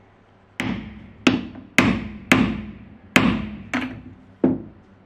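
Hammer blows driving a small metal pin into a plywood base: seven sharp strikes, each with a short ring, at an uneven pace of about two a second.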